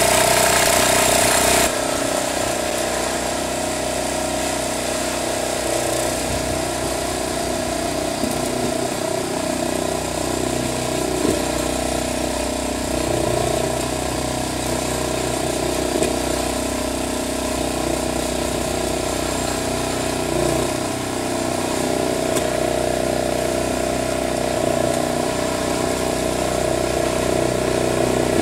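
Wolf-Garten garden tractor engine running steadily while the tractor pushes snow with a front blade. It drops abruptly in level about two seconds in, then runs evenly.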